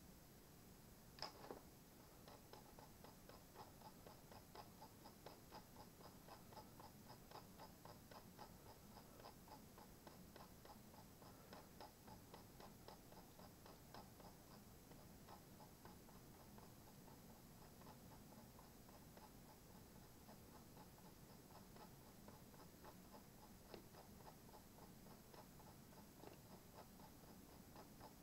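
Faint clicks from a computer mouse's scroll wheel: one sharper click about a second in, then a quick, even run of wheel ticks that thins to scattered clicks after about fifteen seconds.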